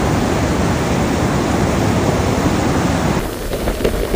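Steady rushing noise of a heavy rainstorm over a flooded road. About three seconds in, it changes to rain pattering down, with many separate drops.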